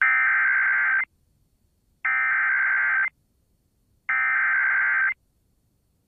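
Emergency Alert System SAME header: three identical bursts of warbling digital data tones, each about a second long with a second's gap between them, broadcast over FM radio. The data encodes a severe thunderstorm warning.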